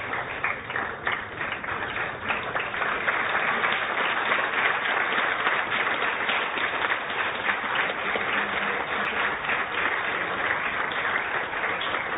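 Audience applauding, a dense steady clapping that grows louder over the first few seconds.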